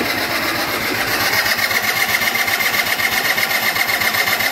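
Electric starter motor cranking an MBK Stunt scooter's 50cc two-stroke engine, a steady whir with a fast even chatter, and the engine does not catch. The non-start is a fault later traced to fuel not reaching the engine.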